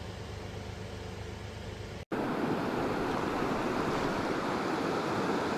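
Mountain stream rushing steadily. About two seconds in, a cut brings louder, closer running water.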